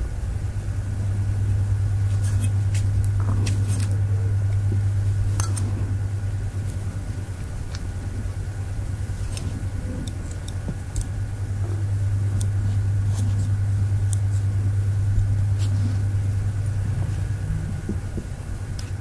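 A steady low hum that swells and eases twice, with scattered faint sharp clicks of lash tweezers at work.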